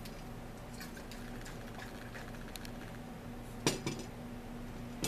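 Light clicks and clinks of a glass bottle and tableware being handled on a table, with one sharper clatter a little before the end. A steady low hum runs underneath.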